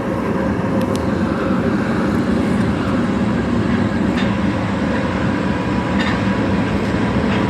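Osaka Metro Tanimachi Line 22 series subway car running at steady speed: a continuous rumble of wheels on rail with a steady whine, which the uploader finds unusually high-pitched, and a few faint clicks.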